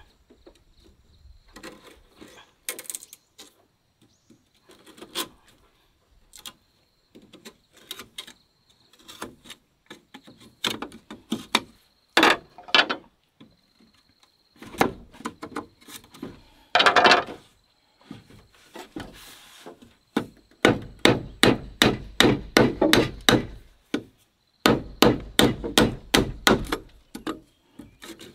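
Wood being hammered: scattered knocks at first, then quick runs of about four to five blows a second in the second half.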